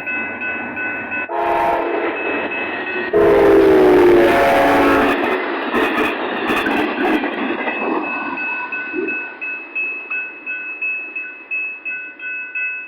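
An Amtrak passenger train sounds its horn at a grade crossing, a short blast and then a longer, louder one, as it runs past and its rumble fades away. A crossing-signal bell rings steadily throughout, its strokes standing out plainly, about two a second, once the train has gone.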